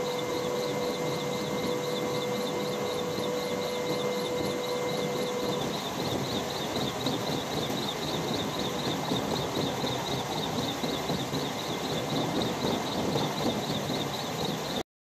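Steady mechanical rushing noise with a steady high whine that stops about six seconds in, cutting off abruptly just before the end.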